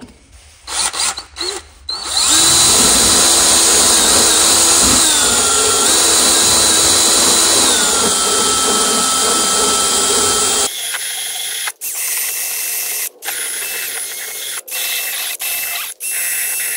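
Cordless drill spinning a rotary burr against the combustion chamber of a Briggs & Stratton cylinder head, smoothing out gouges left by a chunk of metal that passed through the engine. A few short trigger blips come first, then a long steady run whose pitch sags twice as the burr bites. After that come quieter, shorter runs with brief stops.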